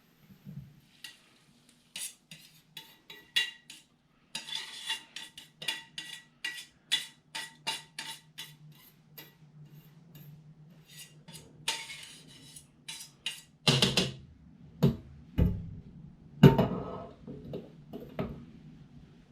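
A utensil clinking and scraping against a pan in a run of short sharp knocks, with a few louder, heavier clanks about three-quarters of the way through.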